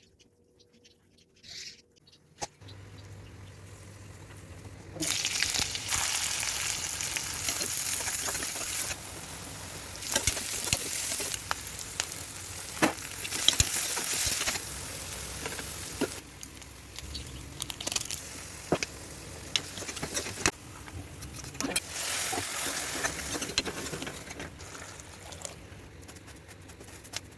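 Vegetables sizzling in hot oil in a pan, stirred with a spatula that clicks and scrapes against the pan. The sizzle starts a few seconds in and is loudest in the middle.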